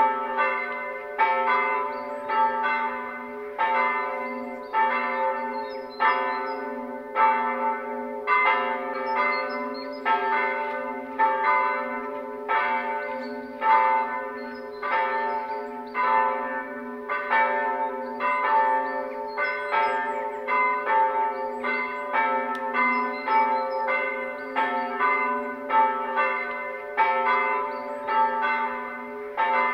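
Church bells ringing, their strikes coming a little faster than one a second in an uneven pattern, each note ringing on over a steady deep hum from the bells: the bells calling to the Sunday service.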